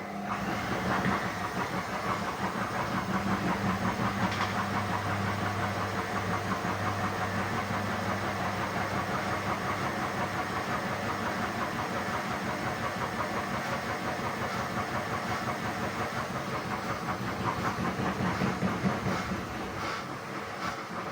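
Indesit WISN 101 washing machine in its rinse cycle: the motor turns the drum with a steady hum and churning of the load, starting right away and stopping about 20 seconds in.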